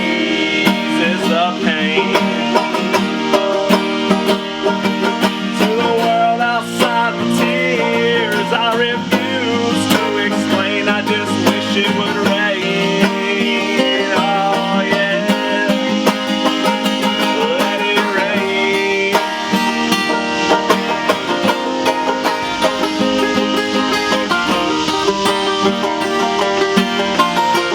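Banjo and guitar playing together, plucked notes running steadily through a soul song's accompaniment.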